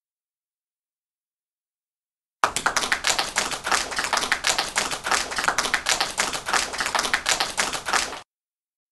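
A crowd clapping, with individual claps easy to pick out, starting suddenly about two and a half seconds in after silence and cutting off abruptly near the end.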